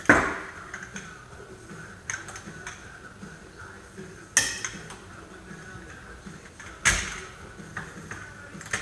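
Click-type torque wrench breaking over with a sharp metallic click as the brake caliper bracket bolts reach 85 foot-pounds. It clicks three times, near the start, about four seconds in and about seven seconds in, with a few fainter clinks of metal tools between.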